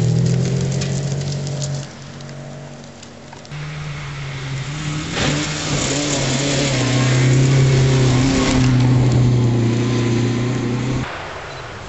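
A rally car's engine driven hard on a gravel stage, heard approaching and growing louder, with a hiss over it. The sound drops abruptly near 2 s and again near 11 s, where the footage is cut.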